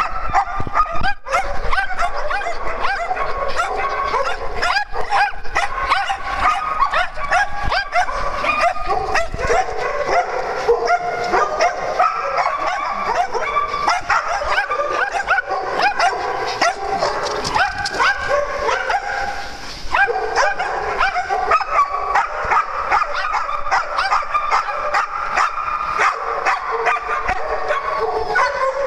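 A pack of dogs barking and yipping nonstop, many high-pitched barks overlapping, with a brief lull about twenty seconds in.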